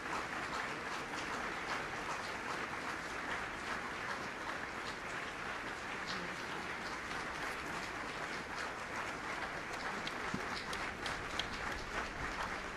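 A crowd applauding steadily, a dense patter of clapping with a few sharper single claps standing out.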